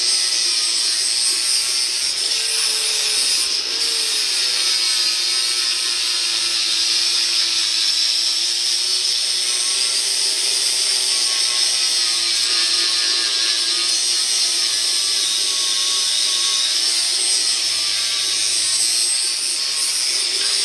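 Angle grinder with an abrasive disc grinding a weld seam on a steel truck frame down flush, running without a break. Its motor whine wavers slightly in pitch as the disc is worked across the steel, over a loud grinding hiss.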